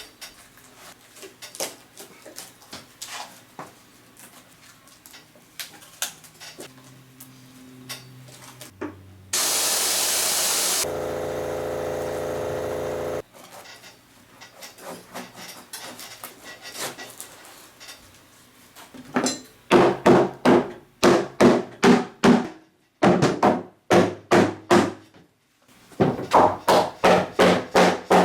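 Hard knocks on an FRP boat-hull mould, struck in quick even runs of about two to three a second to work the laminated hull free during demoulding, with lighter clicks and taps between. About ten seconds in, a short loud hiss is followed by a steady machine hum that lasts a couple of seconds.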